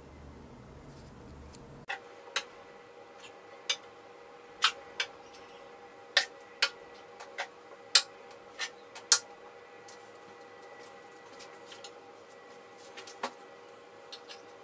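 Steel bench chisels being set one by one against a wooden bar with hidden magnets: a string of sharp, irregular metallic clicks as the blades snap onto the magnets and tap against each other. The clicks start about two seconds in and thin out in the second half.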